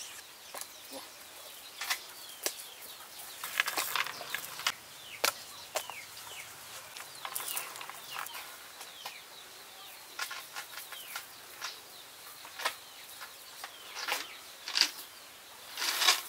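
A nylon fishing net rustles and knocks against a wooden table as frogs are picked out of its mesh. Near the end the net is lifted and shaken, and the rustling is louder. Birds chirp faintly in the background.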